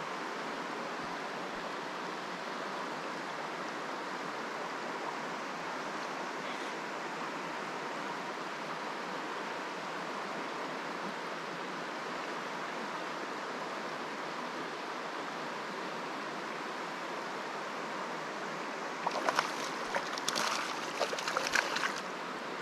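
Steady rush of a mountain trout stream's flowing pocket water. For about three seconds near the end, a burst of sharp, irregular crackling sits on top of it.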